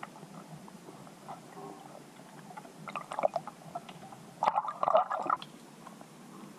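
Muffled underwater sound heard by a submerged camera: scattered faint clicks and gurgling water, with a louder rush of water noise for about a second starting four and a half seconds in.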